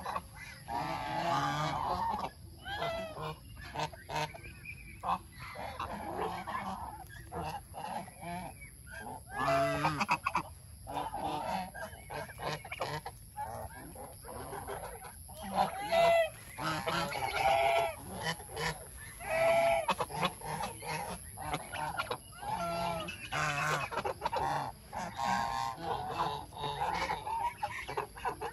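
Domestic geese honking over and over in short calls, with many quick clicks and taps between the calls.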